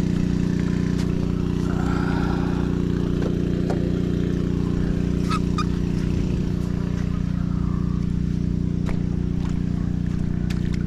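An engine idling steadily, a constant low hum that holds one pitch, with a few scattered light clicks over it.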